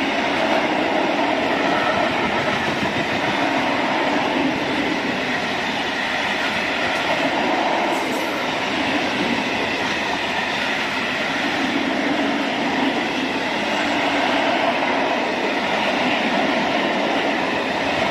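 Freight train of open-top wagons rolling past at close range: a steady rumble and clatter of steel wheels on the rails.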